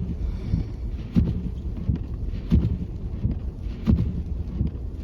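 Windshield wipers sweeping, with a knock about every second and a third as they turn at the end of each stroke, over the low rumble of car tyres rolling on snow, heard inside the car's cabin.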